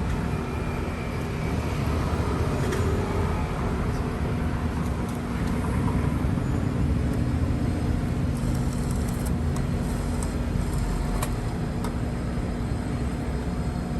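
Steady mechanical hum over a low rumble, with a few faint clicks.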